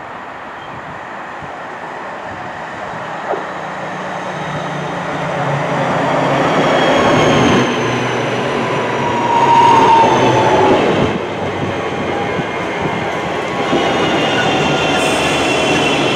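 Northern Class 323 electric multiple unit approaching and passing close by, its wheels on the rails and its motor whine growing louder. A whine drops in pitch as the train goes past, about ten seconds in.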